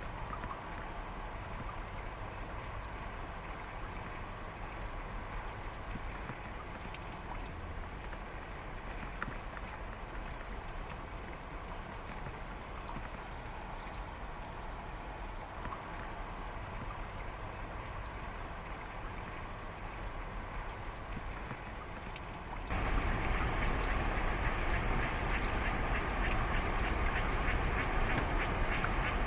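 Steady rain, heard from inside a parked car, with faint scattered drop ticks. About 23 s in the sound suddenly jumps to a louder, denser hiss that holds to the end.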